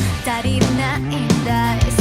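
Anime opening theme song: a rock track with a sung melody over electric guitar, bass and drums.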